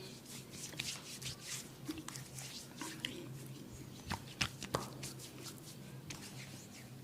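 Hands rubbing, kneading and patting skin and hair during a head and neck massage: a run of soft, quick scratchy strokes, with a few sharper clicks or slaps about four to five seconds in, over a low steady hum.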